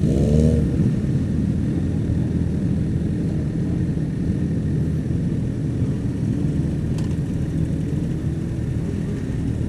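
Several motorcycle engines running at low revs as a group of bikes pulls away slowly, heard from the seat of a Honda CBR1000RR Fireblade; one engine revs up briefly right at the start.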